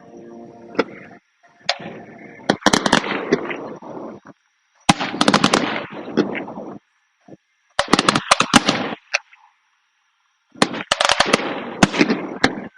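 Fireworks going off in rapid crackling volleys, four clusters of quick sharp pops with short pauses between them.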